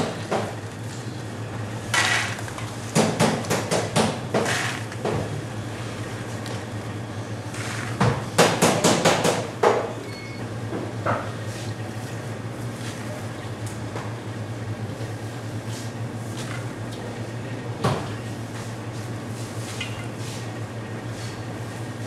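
Handfuls of wet, washed whole dried red chillies dropped into a stainless-steel tray, clattering against the metal in two bursts, about two seconds in and again around eight seconds in, then a few lighter taps. A steady low hum runs underneath.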